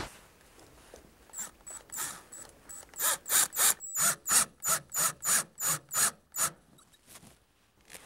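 Cordless drill/driver with a Phillips bit driving the screws into a brass deadbolt latch-bolt faceplate. A few faint sounds come first, then from about three seconds in a regular run of short clicking bursts, about three a second, lasting some three seconds.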